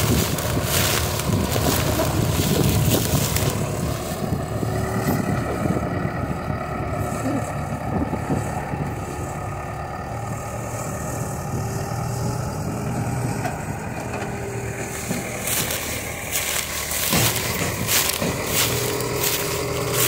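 JCB backhoe loader's diesel engine running steadily at a fairly even pitch, with bursts of crackling noise mostly in the first few seconds and again near the end.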